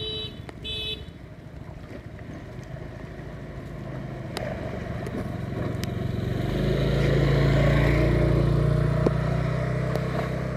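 A small engine running steadily, growing louder from about halfway in and then easing off slightly near the end.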